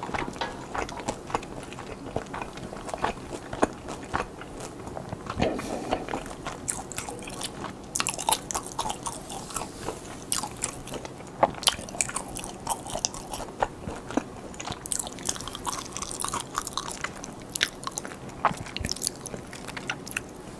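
Close-up chewing of hotteok dumplings, a quick uneven run of wet mouth clicks and crisp crunches as the food is bitten and chewed.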